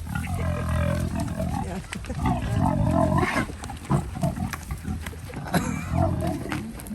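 A large pig grunting: several drawn-out, wavering grunts with short grunts between them.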